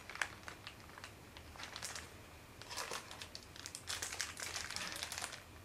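Thin clear plastic accessory bag crinkling in the hands as it is handled and opened, in short irregular spells.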